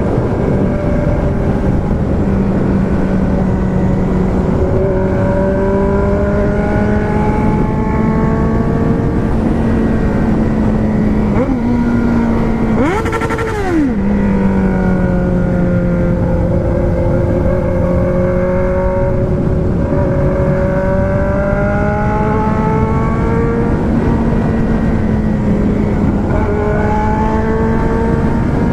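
Four-cylinder engine running steadily under way, its pitch drifting slowly up and down over wind and road noise. About halfway through there is one quick rev blip that rises and falls within about a second, with a short burst of noise.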